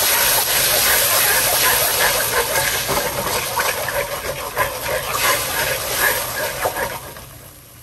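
Soy sauce and brown sugar sizzling in a hot wok, stirred with a wooden spoon; the hiss drops away near the end.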